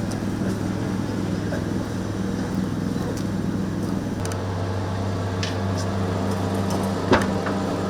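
Steady low mechanical hum, with a sharp click about seven seconds in.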